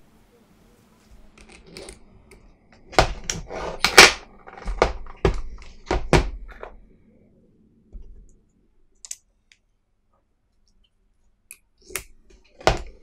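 A run of sharp knocks and clicks, then a pause and a few more clicks near the end: an impact drill being handled on a wooden floor and a magnetic bit holder being fitted into its chuck.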